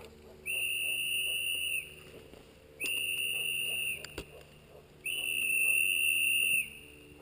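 A whistle blown three times, each a long, steady high note of about a second and a half, with roughly a second's gap between blasts.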